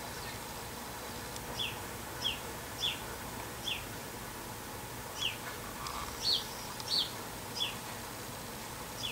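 Male house sparrow chirping: about nine short, falling cheeps at uneven intervals, over a steady hiss of rain.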